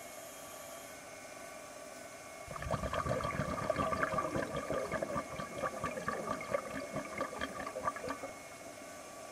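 Diver's exhaled air bubbling underwater: a dense gurgling, crackling rush of bubbles that starts about two and a half seconds in and lasts about six seconds, over a steady hiss.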